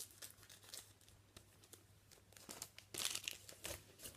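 Trading card pack wrappers crinkling and tearing as their tops are clipped open, in a run of short crackles, loudest about three seconds in.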